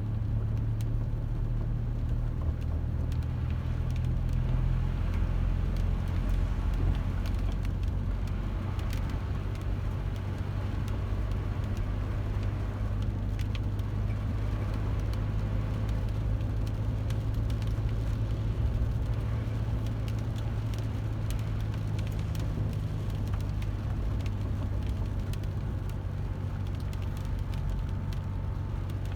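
Car engine and road noise heard from inside a moving car: a steady low drone whose pitch shifts slightly a few times as the car drives.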